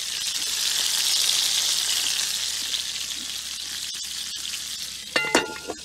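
Ground-meat patties sizzling in hot oil in a frying pan, a steady hiss that eases a little as it goes. Near the end a metal lid clinks against the pan and rings briefly.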